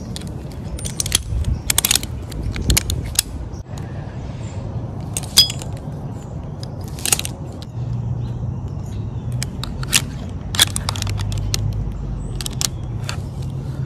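Metal climbing hardware clinking and clacking: carabiners and the lanyard's snap hook knocking together as a second lanyard is passed around the trunk and clipped back into the saddle's lower D-rings, in scattered sharp clicks. A low steady hum runs underneath from about halfway through.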